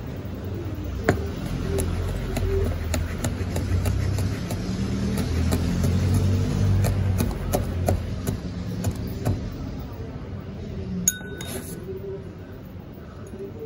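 Kitchen knife chopping a red chili on a plastic cutting board: quick, irregular taps of the blade on the board, about two or three a second, thinning out after about nine seconds, with a brief ringing clink near the end, over a low steady murmur.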